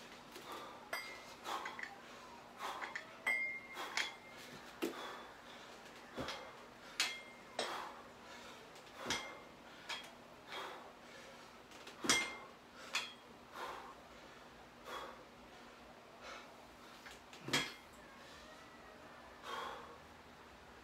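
Adjustable dumbbells' metal plates and collars clinking and knocking about once a second, some knocks ringing briefly, as the dumbbells are lifted and set down during repetitions, with hard breathing from exertion between them.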